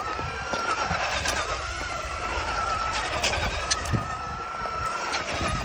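Radio-controlled car's motor whining at a nearly steady pitch as it spins its wheels and drifts in snow, with a few short ticks.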